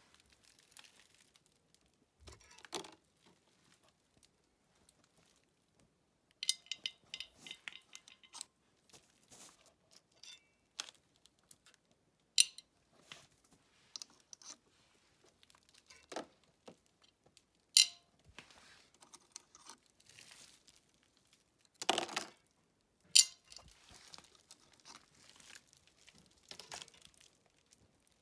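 Small metal clutch parts of a dirt bike (spring bolts, springs, the cover) being handled, giving irregular clicks and clinks, with crinkling of plastic sheeting underneath. A few louder knocks come in the second half.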